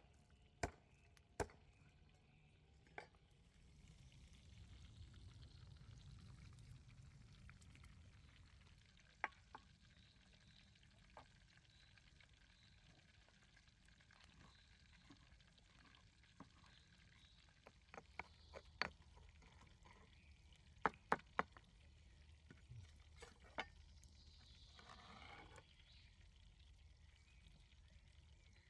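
Quiet food preparation: scattered sharp knocks and clicks of a chef's knife and a granite mortar and pestle on a wooden cutting board, over faint frying oil in a cast iron pot. Near the end, a short grinding scrape of the pestle in the mortar.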